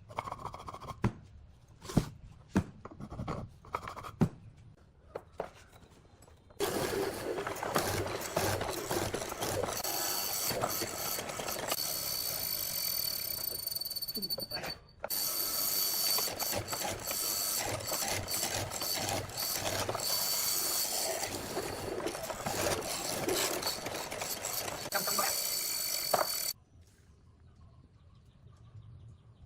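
Several sharp knocks on wood, then a power tool running on wood with a steady high whine. It starts abruptly, pauses for a moment partway, and cuts off near the end.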